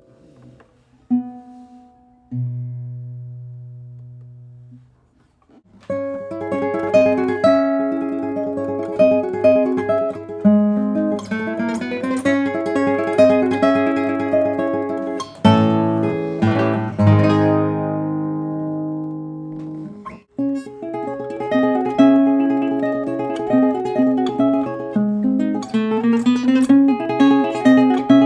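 Nylon-string classical guitar played solo. A few single notes ring out at first, then a continuous fingerpicked passage begins about six seconds in. It includes a couple of strummed chords midway and a brief pause before the playing resumes.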